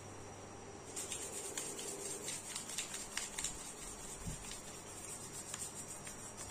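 Sandpaper rubbed by hand over a small sengon-wood slingshot fork: quick, irregular scratchy strokes that start about a second in.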